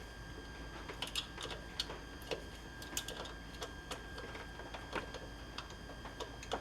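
Scattered light clicks and taps of small tools and metal parts being handled, irregular and about a dozen in all, over a steady faint hum with a thin high whine.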